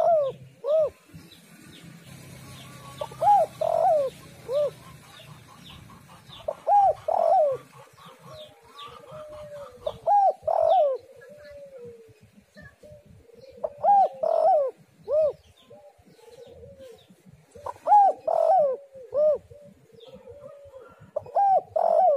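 Spotted dove (tekukur) cooing: a phrase of several rising-and-falling coo notes repeated about every three and a half seconds, seven times. Faint high chirps of other small birds sound in the first few seconds.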